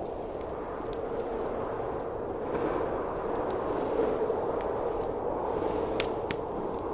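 Wood fire crackling with scattered sharp pops over a steady rush of blizzard wind.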